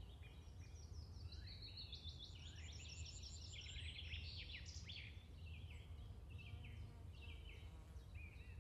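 Several birds chirping and calling in quick, repeated short notes, busiest around the middle, over a faint steady low rumble.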